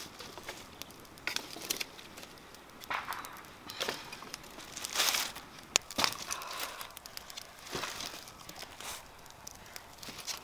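Dry sticks and leaf litter rustling and crackling in scattered bursts, with a few sharp knocks, as whole cassava roots are laid across a small stick fire.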